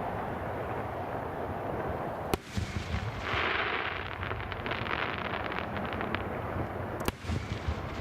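Fireworks display: two sharp bangs of bursting shells about five seconds apart, with a long spell of crackling stars between them, over a steady low background.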